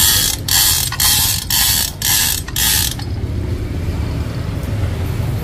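Steel chain clattering through a 0.5-tonne manual chain hoist in six short pulls, about two a second. It stops about three seconds in.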